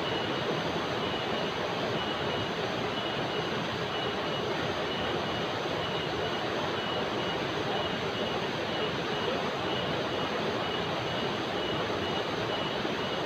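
River rapids rushing steadily over rocks, with a cicada's high pulsing call running over the water noise.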